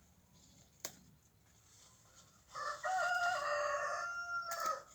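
A rooster crowing once, one long call starting about two and a half seconds in. A single sharp click comes about a second in.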